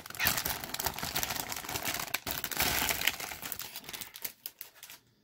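A clear plastic bag crinkling and rustling as a large plastic model-kit runner is slid out of it, with many small clicks of plastic. It dies away about four seconds in.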